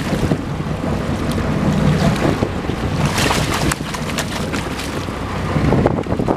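Water splashing and sloshing against the boat hull as a hand-held fish is swished through the surface, with the splashes loudest about three seconds in. Wind buffets the microphone throughout, over a low steady drone.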